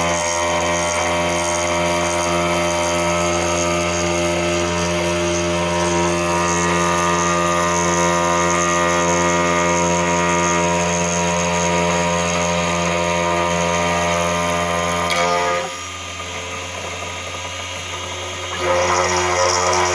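Arduino-controlled CNC machine running a cut in plastic: a steady motor whine made of several held tones. About three-quarters of the way through it drops quieter for about three seconds, then comes back at full level.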